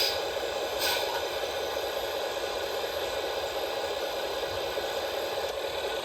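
Radio-controlled scale model vehicle running: a steady electric-motor and gearbox whine with a light rattle, with short hissing bursts at the start and about a second in.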